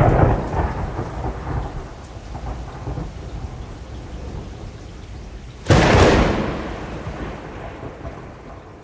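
Thunderstorm: thunder rumbling and fading over steady rain, then a sudden sharp thunderclap a little past halfway that rolls away slowly.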